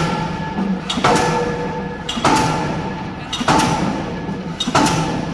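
K25 diesel pile hammer striking a spun concrete pile, one heavy blow about every 1.2 seconds. Each blow rings and fades before the next, five in all.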